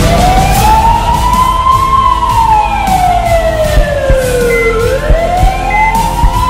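Wailing siren, its pitch slowly rising for about two seconds, falling for about three, then rising again, over a steady music beat.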